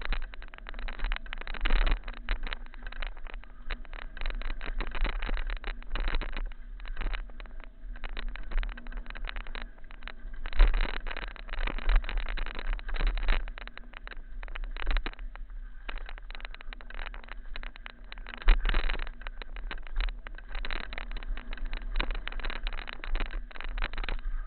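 Mountain bike ridden fast down a rough dirt trail: wind buffeting the action camera's microphone, with constant rattling and clatter from the bike over bumps. Two hard knocks stand out, one about ten and a half seconds in and one near eighteen and a half.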